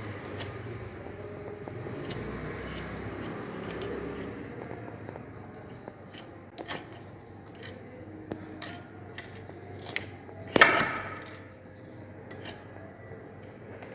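Steel twist gimlet turned by hand in a hole it is boring in wood, a soft scraping of the flutes cutting. Scattered small clicks follow, and a single sharp knock about three-quarters of the way through is the loudest sound.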